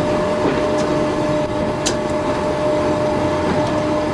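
Slam-door 4-CEP electric unit with its MLVs running slowly over jointed track, heard from an open window: steady running noise with a steady hum, and a single sharp click about two seconds in.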